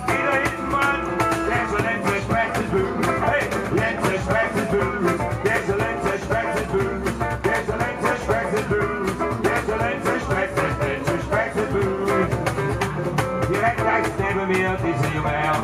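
Live small band playing a song: acoustic guitar, hollow-body electric guitar, upright double bass and cajón, with a steady beat.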